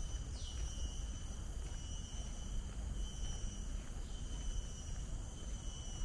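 Insects droning steadily in a tropical forest, several high held tones that run on without a break. About half a second in comes one short falling whistle, over a constant low rumble.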